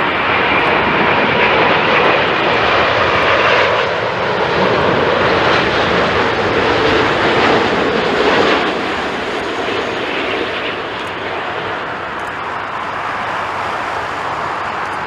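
Jet airliner's engines running loud as it passes, then fading away after about eight or nine seconds.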